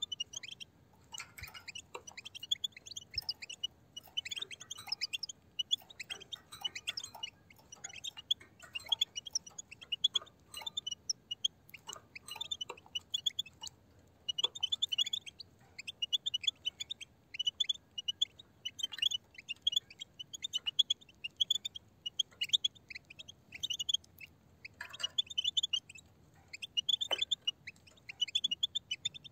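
A flock of European goldfinches twittering: quick runs of short, high chirping calls, with a few sharp clicks mixed in.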